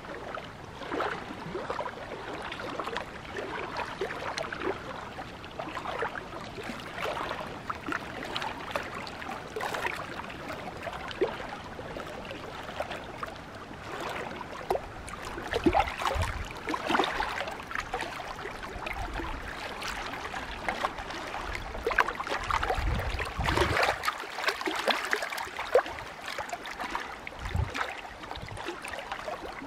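Small waves of lake water lapping and gurgling against a granite rock shoreline, an irregular run of little splashes with louder slaps and low rumbles now and then in the second half.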